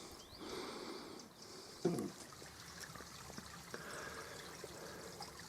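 Faint trickling of a small, nearly dried-up stream, with a single soft thump about two seconds in.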